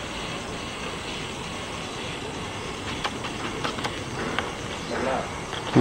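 Small electric motor of a homemade bottle paddle boat running steadily as its oars stroke the water, with scattered light clicks and splashes over a constant whirring hiss.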